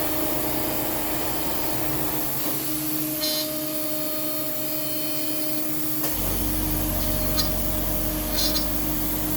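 Spindle of a home-built PrintNC CNC router running steadily through a light finishing pass in 6061 aluminium, with the hiss of an alcohol mist coolant spray. A deeper hum joins about six seconds in.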